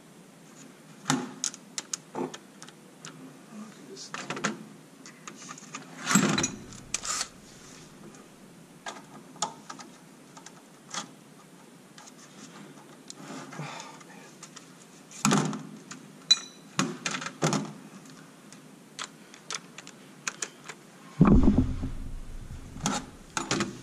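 Scattered clicks and metallic clinks of tools and bolts being handled on a metal workbench as the deck bolts of a Magnuson TVS-2300 supercharger are worked loose with a cordless driver. A few louder knocks stand out, and there is a heavy thud near the end.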